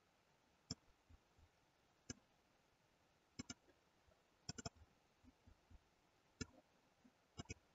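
Sharp clicks of a computer mouse and keyboard, about ten in all, some in quick pairs and one quick run of three, over near silence.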